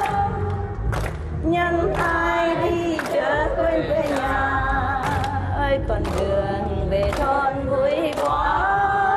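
A Vietnamese song sung with musical accompaniment, the melody carried over a steady low backing and a sharp percussive beat about once a second.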